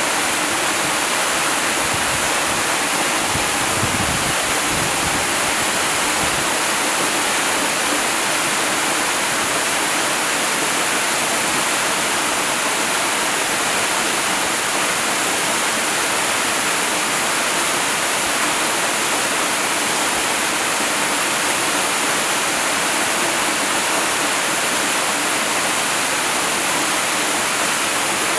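Waterfall rushing in a steady, even hiss, heavy in the treble, with a few faint low rumbles about four seconds in.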